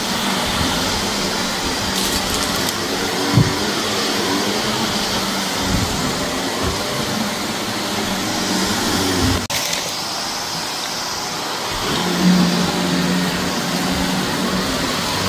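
Shark vacuum cleaner running on carpet, its motor humming steadily, with scattered clicks of grit being sucked up. The sound briefly drops out about nine and a half seconds in, then resumes.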